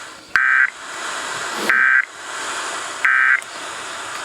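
Emergency Alert System end-of-message signal: three short warbling SAME data bursts, each about a third of a second and a little over a second apart, marking the close of the alert. A steady radio hiss lies under and between them.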